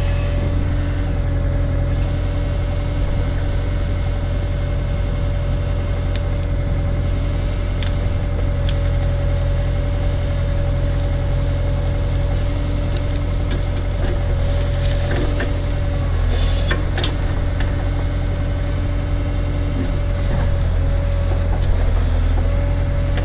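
Case/Davis D100 backhoe's engine running steadily with a steady whine over it, while the machine works, with a few sharp clicks and scrapes about a quarter and two-thirds of the way through.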